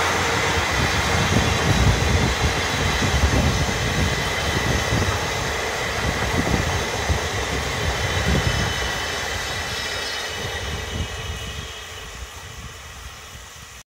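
A locomotive-hauled train of old-type passenger coaches running away along the track. The wheels rumble and knock irregularly over the rail joints, and the sound fades steadily as the train recedes.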